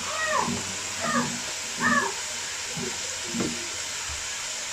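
About five short vocal calls, each rising then falling in pitch, spread over the first three and a half seconds, over a steady hiss.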